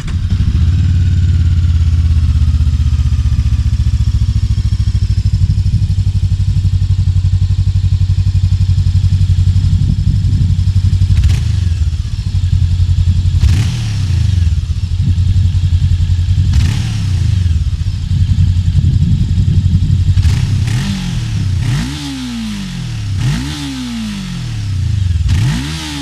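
Macbor Montana XR5 500's parallel-twin engine through its stock exhaust, idling steadily at first. About halfway through it is blipped a few times, and near the end it is revved in several quick throttle blips that rise and fall sharply.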